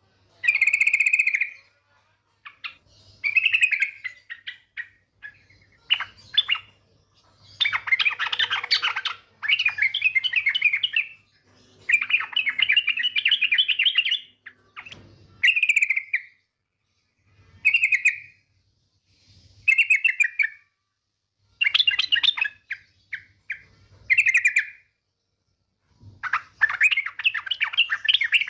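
Female yellow-vented bulbul (trucukan) calling, a lure call for males: bubbly, chattering phrases repeated again and again with short pauses, some brief and some running two or three seconds.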